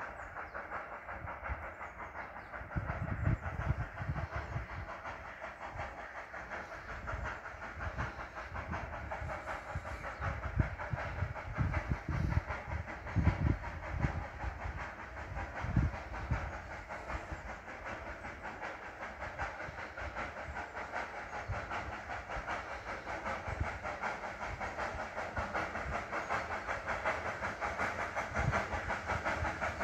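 Steam locomotive no. 490,039 chuffing and hissing out of sight up the narrow-gauge line, growing gradually louder as it approaches. Irregular low gusts rumble over it in the first half.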